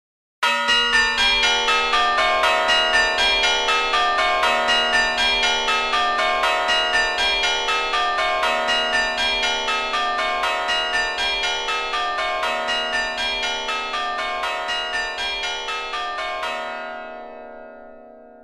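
A peal of bells rung in quick succession, about four strokes a second, in the manner of change ringing. The ringing stops about sixteen seconds in and the last notes die away.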